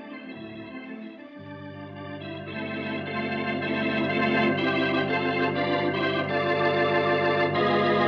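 Organ music playing the program's closing theme: held chords that swell louder over the first few seconds, with a sustained bass note coming in about a second and a half in.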